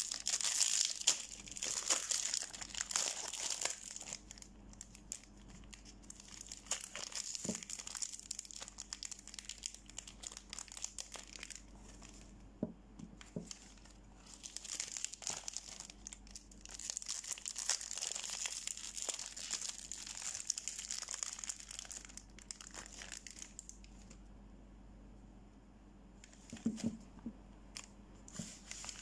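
Soap bar wrappers being torn open and crinkled close up by hand, in bursts of crackly rustling that die down for a while near the end, with a few short knocks as the bars are handled.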